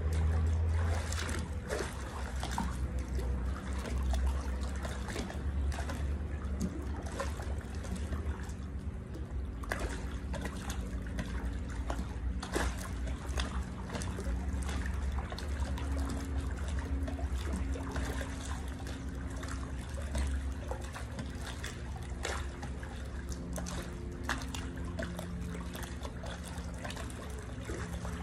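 Pool water sloshing and splashing irregularly around a person doing knee lifts in chest-deep water while pushing foam water dumbbells back and down, with a low steady rumble underneath.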